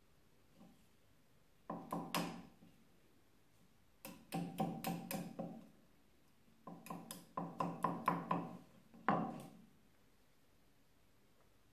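Mosaic hammer striking pieces of Venetian smalti held on a hardie set in a wooden log, cutting the glass into tesserae. Three runs of quick, sharp taps, each tap with a brief metallic ring.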